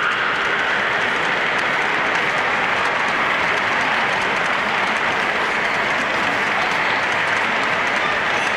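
O gauge model freight train's metal wheels rolling along three-rail track as the cars pass close by, a steady even rushing noise.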